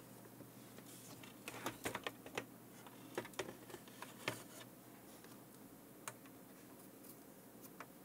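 Scattered light clicks and taps from small tools and parts being handled while surface-mount push-button switches are soldered onto a circuit board. The clicks come in two bunches in the first half and once more about six seconds in, over a faint steady low hum.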